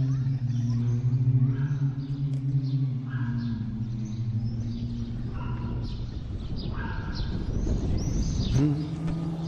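Small birds chirping in quick, repeated short calls over a steady low drone.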